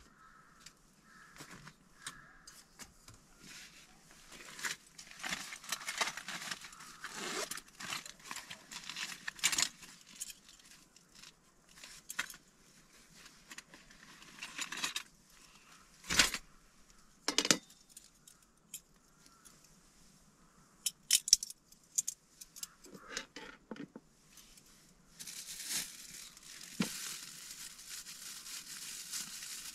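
Plastic packaging being handled: rustling and crinkling in stretches, with scattered sharp clicks and knocks. Near the end the crinkling becomes steady.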